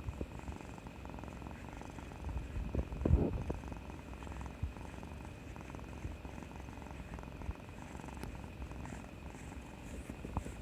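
Domestic cat purring steadily close by, with a louder swell about three seconds in.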